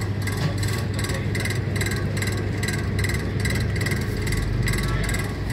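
A steady machine hum with a whirring hiss that pulses evenly, about four times a second.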